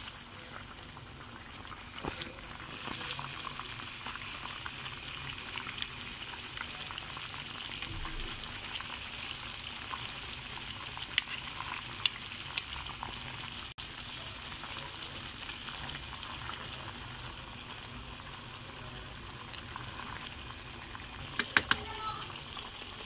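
Chicken legs deep-frying in hot oil: a steady sizzle with occasional sharp pops of spattering oil, and a quick cluster of pops near the end.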